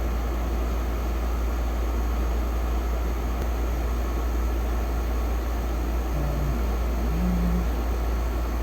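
Steady low hum with an even hiss, like a running fan; two brief faint low tones sound about six and seven seconds in.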